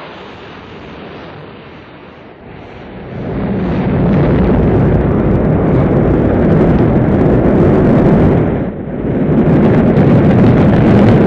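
Rocket launch: a low rumble of engine exhaust that swells about three seconds in to a loud, deep, steady rumble, dipping briefly near the end.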